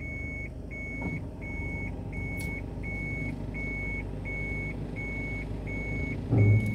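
A car's reverse-gear warning beeper sounding steadily, one high beep about every 0.7 seconds, over the low hum of the idling engine while the car backs into a parking space. A short low thump comes near the end.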